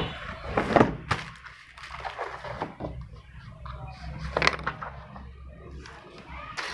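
Handling noises as scissors and a sheet of paper are picked up and moved about: a few sharp knocks and rustles, over a low steady hum.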